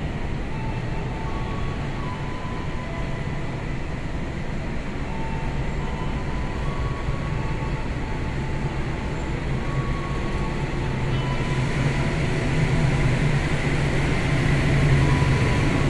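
Commuter electric train (KRL) coming into the station, a steady rumble that grows louder over the second half.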